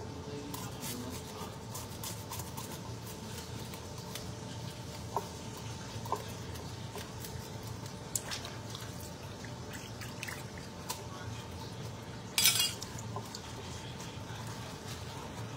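Fish being cleaned at a sink: scattered light clinks and knocks of a knife and bowls, and water sloshing as a hand works in a basin of fish, with one louder noisy burst about twelve seconds in, over a faint steady hum.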